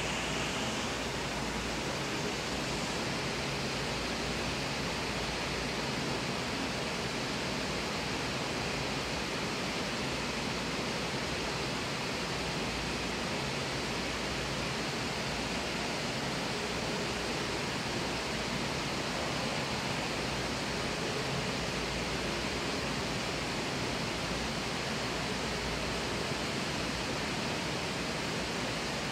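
Steady rush of water from an indoor rock waterfall and stream, an even hiss that does not change.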